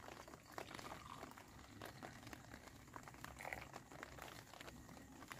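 Faint pouring of tea from a kettle into steel cups, with scattered light ticks.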